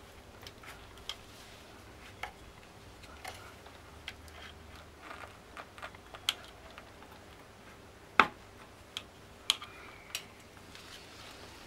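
Scattered light metallic clicks and ticks as a motorcycle engine's side cover is pried and worked loose from the crankcase, with one sharper click about eight seconds in.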